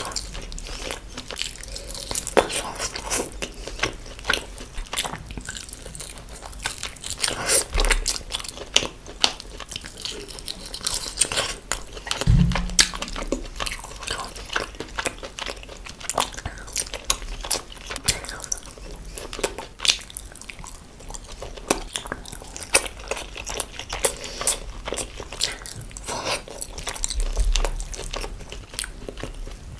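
A person biting and chewing chicken and eggs close to the microphone: a dense, continuous run of crunchy clicks and wet crackles of mouth sounds.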